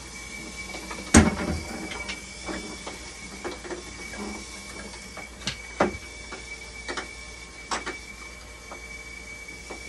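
Hemodialysis machine running during a test: a steady high tone with scattered mechanical clicks, and a loud knock about a second in.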